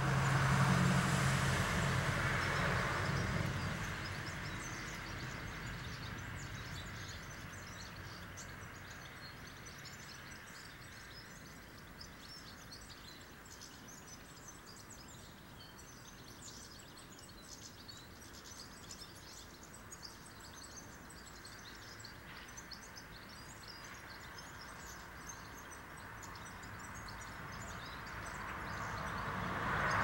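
Small birds chirping and twittering in quick, scattered high calls. A passing vehicle rumbles loudly at the start and fades away within a few seconds, and another builds up near the end.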